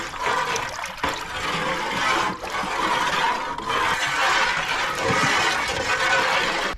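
Milk sloshing and churning in a large steel pot as it is stirred with a long metal paddle while rose syrup is mixed in: a steady watery rushing.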